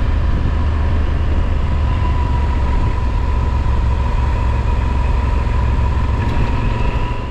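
Motorcycle engine running at a steady road speed, with wind rushing past the bike and a thin steady whine above the rumble.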